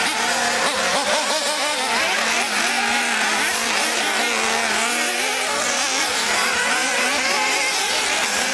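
Several small two-stroke nitro engines of 1:8 scale off-road RC buggies buzzing at high revs, their pitches rising and falling as the cars accelerate and brake through the corners.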